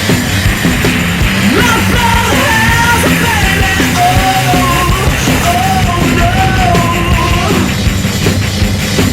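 Loud hard rock music with a pounding drum beat; a shouted vocal line comes in about a second and a half in and drops out near the end.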